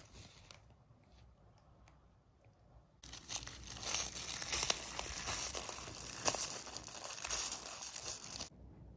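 Crinkly plastic material rustling and crackling steadily for about five seconds, starting about three seconds in and stopping abruptly near the end.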